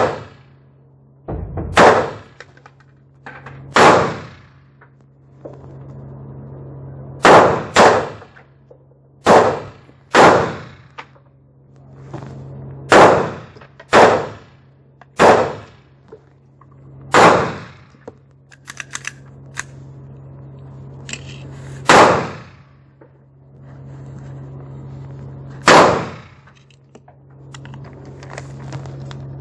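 Pistol shots fired one at a time, thirteen loud ones at uneven gaps of about half a second to four seconds, with a few fainter sharp cracks between them and a steady low hum underneath.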